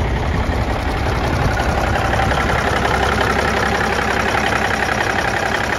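Cummins 350 hp straight-six diesel engine of a 1992 Kenworth truck idling steadily with a dense, even beat. It gets somewhat louder and brighter about two seconds in.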